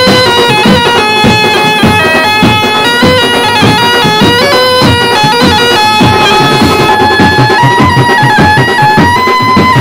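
Background music: a melody of held notes stepping in pitch over a steady drum beat.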